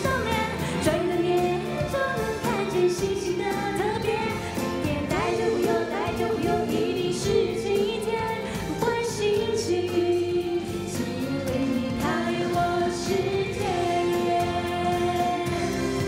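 A woman singing a Chinese-language pop song live into a microphone, with a live band accompanying her, keyboard included.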